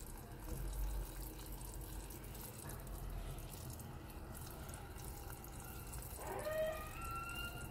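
Sugar syrup simmering in a small stainless steel pot on a gas burner, a faint steady bubbling; it is being boiled down toward the thread stage.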